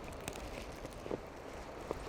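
Footsteps crunching in snow at a steady walking pace, about one step every 0.8 seconds, over a steady background rush.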